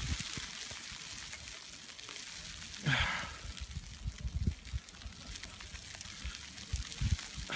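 Wind buffeting the microphone in irregular low gusts over a steady hiss. A brief, higher-pitched sound comes about three seconds in.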